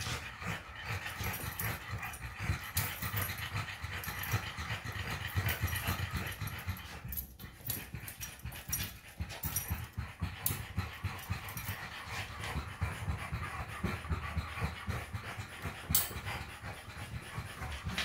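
French bulldogs panting rapidly, the quick breaths going on throughout, with a few short clicks among them.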